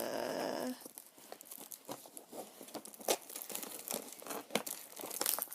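Snack packaging being torn open in one continuous rip lasting under a second, followed by scattered crinkling and crackling of the wrapping as it is handled.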